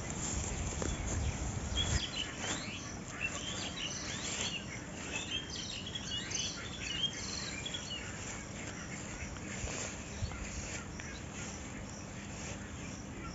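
Small birds chirping and twittering, busiest from about two seconds in until about eight seconds, over a steady background of insects.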